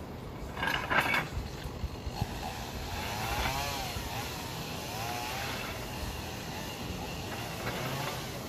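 Weight sled being dragged over rough ground: a steady scraping grind, with a few knocks about a second in.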